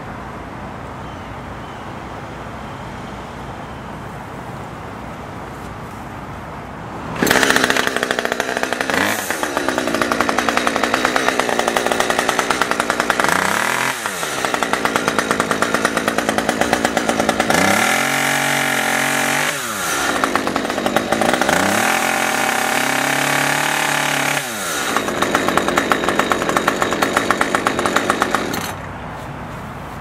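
A small two-stroke chainsaw engine running for about twenty seconds, starting about seven seconds in and stopping near the end, its engine speed rising and falling again and again as it is throttled.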